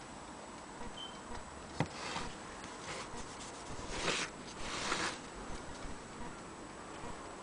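Quiet handling noises on an antique Willcox & Gibbs sewing machine: a sharp click about two seconds in, then short scratchy rustles around four and five seconds in as a hand works near the handwheel.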